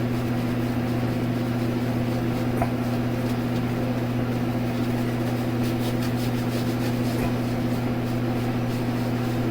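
Steady low hum, even and unchanging, with one faint click about two and a half seconds in.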